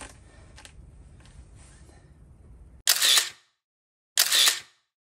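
Two camera shutter sounds about a second and a half apart, each a short sharp snap, in dead silence. They follow a few seconds of faint low background noise with small ticks.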